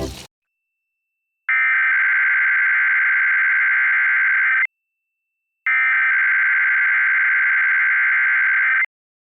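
Emergency Alert System SAME header: two bursts of buzzy digital data tones, each about three seconds long, with a second of silence between them. The first starts about a second and a half in. This is the coded header that opens a Required Weekly Test.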